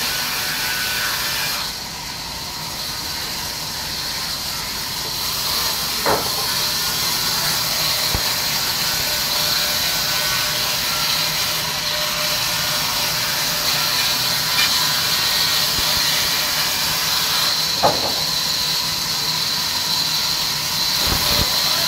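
Large log band saw running as a log is fed through the blade: a steady, high hiss of the blade cutting wood, with two short sharp knocks.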